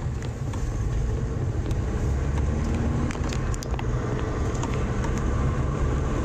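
Steady low rumble of a car on the move, with a few faint clicks over it.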